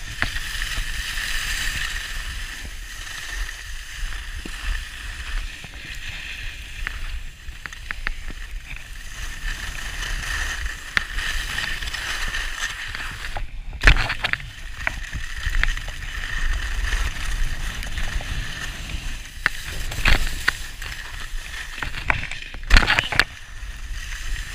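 Skis sliding and scraping over packed groomed snow at speed, a steady hiss with wind rushing on the microphone. A few sharp knocks cut through it, about halfway in and twice near the end.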